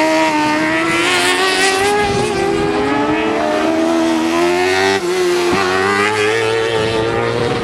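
Sprint buggies' engines revving hard through a corner, the note rising and falling with throttle and gear changes, with a brief drop about five seconds in.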